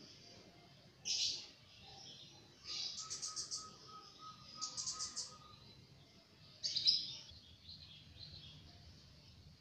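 Birds chirping: a few short bursts of high chirps and quick trills of repeated notes, the loudest about seven seconds in.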